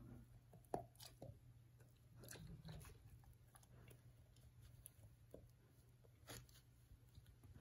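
Great Dane puppy chewing a feather: faint, scattered crunches and clicks of its teeth on the feather, the sharpest one under a second in.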